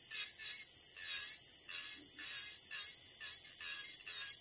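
Electric nail drill spinning with a steady high whine, its barrel bit rasping on a fingernail in short strokes, two or three a second, as it grinds off the remaining gel with light pressure.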